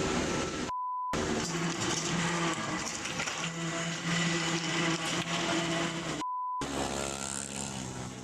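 A steady rushing noise with some held low tones in it, cut twice by a short, high censor beep set in a brief gap of silence: once about a second in and again about six seconds in.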